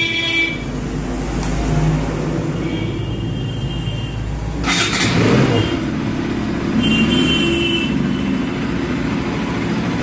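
Bajaj Pulsar RS 200's single-cylinder engine starting and running, a cold start after standing unused for many days, with a louder burst about five seconds in.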